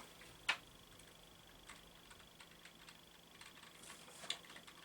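Makita cordless coffee maker heating its water: a faint, steady, high-pitched squeal with a few small ticks and clicks.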